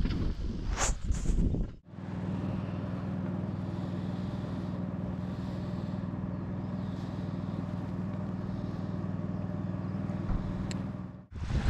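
Small outboard motor running steadily at a constant speed, heard from aboard the boat it drives. It is preceded for about the first two seconds by outdoor ambience with two short high chirps.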